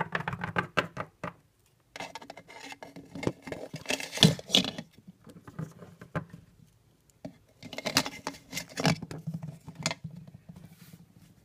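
Small plastic toy figures and a plastic lid being handled and set down on a wooden surface: light taps, clicks and rustles in three bursts with short pauses between.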